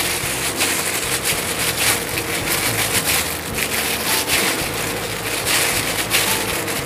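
Clear plastic glove crinkling and rustling as a hand squeezes and packs mashed, spiced tempe into balls, a dense run of small crackles. A faint steady hum sits underneath.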